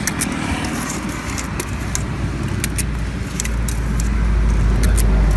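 Low rumble of road traffic, with a vehicle growing louder over the last couple of seconds. Over it come light, scattered metallic clicks from an ice-cream scoop against the metal tub.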